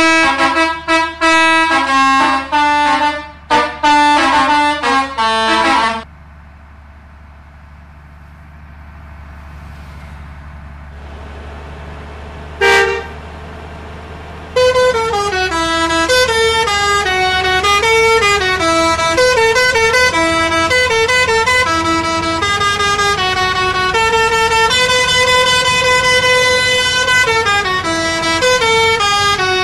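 Bus telolet horn, a set of tuned horns sounded in sequence, playing quick melodic tunes. The tunes stop about six seconds in, leaving a low steady hum with one short blast in between. The horn tune resumes about fifteen seconds in and keeps playing.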